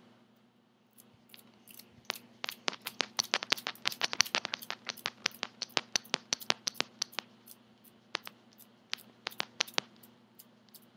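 Glass, crystal and silver beads on an elastic-cord bracelet clicking against each other as the cord is stretched over and over. This is the pre-stretching of the elastic before it is knotted. The clicks come in a quick, dense run from about two seconds in, then thin out to scattered clicks.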